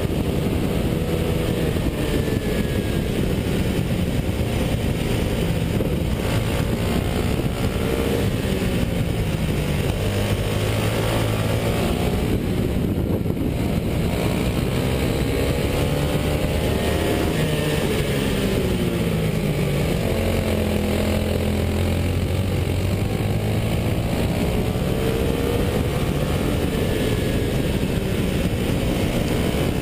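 Racing kart's small engine heard from on board at speed. Its pitch falls as the driver lifts for the corners and climbs again as it accelerates out of them, several times over, with steady wind and road noise underneath.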